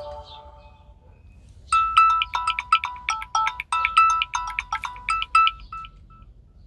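Mobile phone ringtone: a quick melody of short, bright electronic notes, several a second, starting a little under two seconds in and stopping about half a second before the end. At the start, the last notes of a previous ringtone die away.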